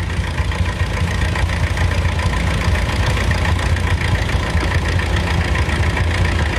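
International Harvester tractor engine running steadily under load as it pulls the weight-transfer sled, a low, even engine note.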